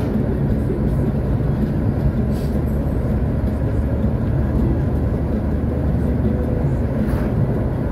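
Steady low rumble of engine and tyre noise heard from inside a vehicle's cabin while driving along at a constant pace.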